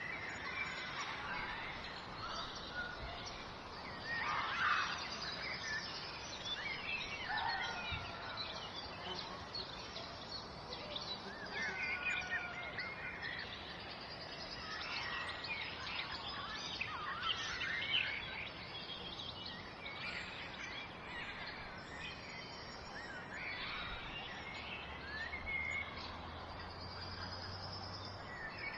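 Several songbirds chirping and singing at once, quick overlapping chirps and trills with no pause, over a steady background hiss.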